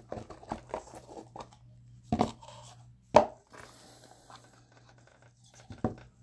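Rigid lidded trading-card box being worked open by hand: light scrapes and taps for the first second or so, then a few sharp knocks as the lid comes off and the box and lid are set down on the table. The loudest knock comes about three seconds in.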